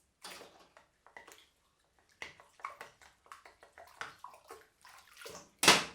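Kitchen utensils being washed by hand in water: irregular sloshing and splashing, with the loudest splash near the end.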